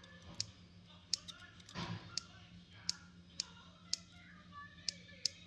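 Light, sharp clicks at irregular intervals of about half a second, from the handling of a rebuildable dripping atomizer while its coils are dry-fired: the vape mod's fire button pulsed and ceramic tweezers pinching the coils.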